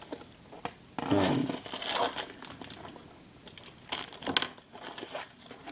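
Packaging crinkling and rustling in irregular bouts as the parcel is emptied, busiest about a second in and again around four seconds in.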